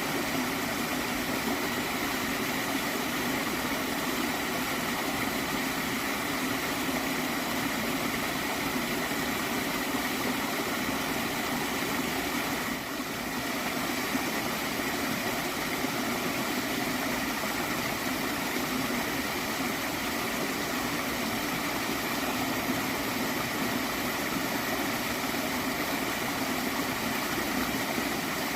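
Water stream flowing and gurgling, a steady, even rush with no let-up.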